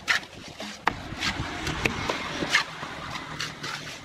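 Hand trowel scraping and slapping wet cement mortar, several short strokes, over a steady low background rumble.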